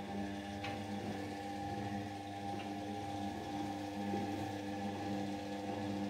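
Indesit WIU100 front-loading washing machine in its wash phase, the drum motor running with a steady hum as the drum tumbles wet laundry, with a wet swishing underneath.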